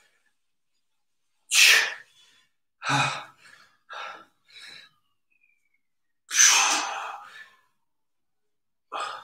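A man's sharp, forceful breaths out, about six short hissing puffs with near-silent gaps between, the loudest about a second and a half in and about six and a half seconds in: breathing out hard with the effort of side-plank leg raises.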